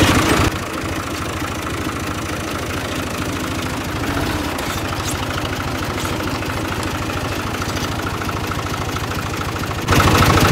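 A tractor's diesel engine running steadily with an even firing rhythm, heard from the driver's seat. From about half a second in until near the end it sounds muffled, as if covered by clothing, then comes back clearer.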